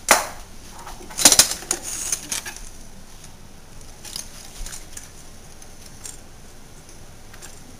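Metal silverware clinking as utensils are dropped into a kitchen silverware drawer: a sharp clink at the start, a louder cluster of clinks about a second in, then a few faint ticks.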